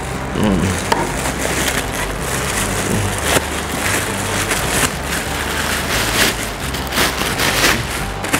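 Clear plastic wrapping crinkling and crackling as it is pulled and torn off a light-stand tripod by hand, with many small sharp crackles packed close together.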